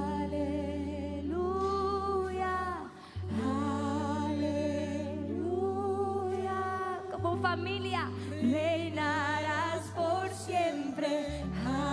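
Church worship music: singing in long, wavering held notes over sustained chords that change about every four seconds.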